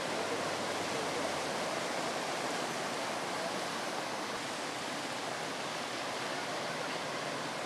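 Floodwater rushing through a street: a steady, even wash of moving water.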